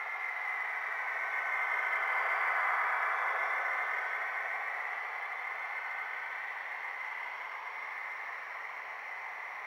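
HO-scale model train, a Rivarossi BLS Re 4/4 locomotive with a sound decoder hauling closed wagons, running past close by: a steady rushing hiss of wheels on the track and the motor, with a faint steady whine. It is loudest about two and a half seconds in, then slowly fades.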